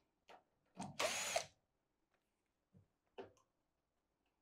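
Cordless power screwdriver with a Phillips bit backing out the washer-dryer's top-cover screws in short whirring bursts. The longest burst comes about a second in and lasts about half a second, with smaller clicks and a short burst near three seconds in.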